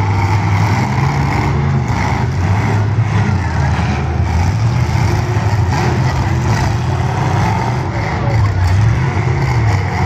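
Engines of several full-size demolition derby cars running and revving, their pitch rising and falling.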